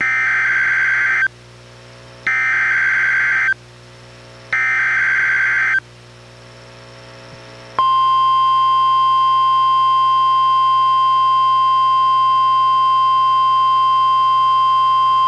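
NOAA Weather Radio emergency alert heard through a weather radio's speaker. First come three buzzing bursts of SAME digital header data, each just over a second long and about a second apart. About eight seconds in, the steady 1050 Hz warning alarm tone starts and holds, signalling a special marine warning.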